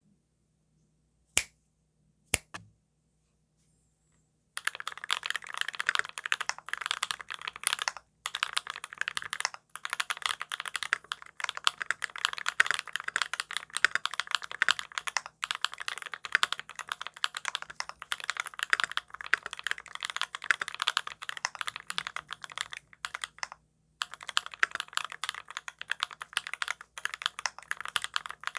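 Close-miked TX87v2 mechanical keyboard with lubed Drop Holy Panda tactile switches, a brass plate and GMK keycaps, being typed on. Two single keystrokes come first, then from about four and a half seconds in a fast, continuous run of typing, broken by a few short pauses.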